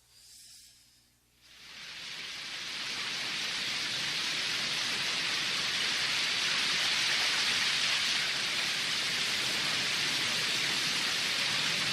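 Steady rain-like hiss that fades in over about a second and a half, then holds even.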